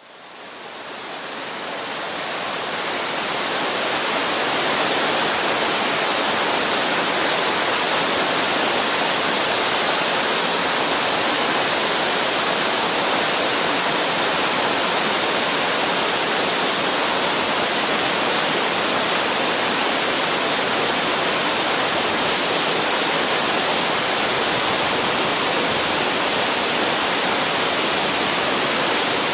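A waterfall's water crashing down in a steady, dense rush of white noise that fades in over the first few seconds and then holds even.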